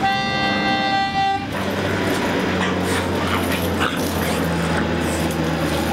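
Small red concertina sounding one held reed chord for about a second and a half. After that it stops and a low steady hum with a noisy hiss takes over.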